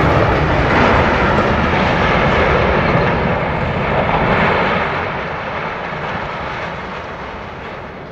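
Rumble of a large power-plant structure collapsing in a demolition, loud at first and slowly dying away over the last few seconds.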